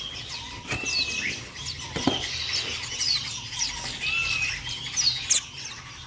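Young hand-raised songbirds chirping: short, high, downward-slurred chirps about once or twice a second, with a couple of longer arched calls between them.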